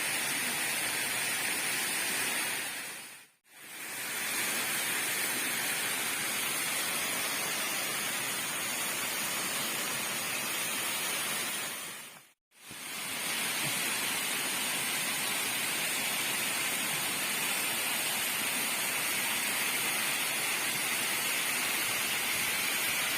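Waterfall rushing, a steady even roar of falling water, dropping out briefly twice.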